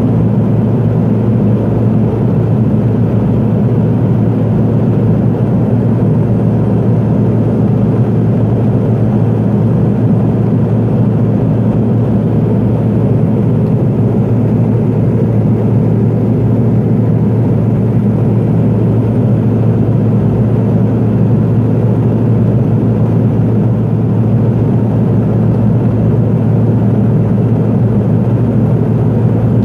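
Cabin drone of a Pilatus PC-12 in flight: its single Pratt & Whitney PT6A turboprop engine and propeller give a steady low hum over a broad rush of noise, unchanging throughout.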